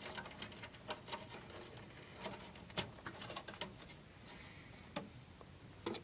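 Faint, scattered clicks and taps of hands handling cables and plastic connectors inside a desktop computer case, about one every half second.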